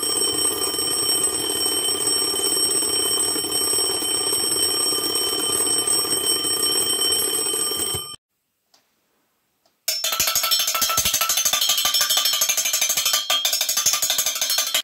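Bell alarm clock ringing continuously for about eight seconds, then cutting off suddenly. After a short pause, a steel saucepan is struck rapidly, making a fast metallic clatter in imitation of the alarm.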